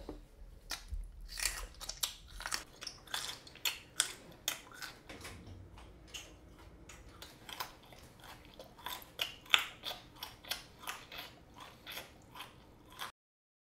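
A person chewing loudly with his mouth open: a rapid run of wet clicking mouth sounds, two or three a second, that cuts off suddenly near the end.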